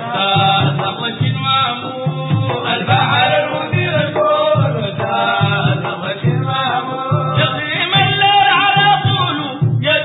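Sudanese madeeh, a Sufi praise song to the Prophet: male voices sing a chanted melody over a steady, repeating drum beat.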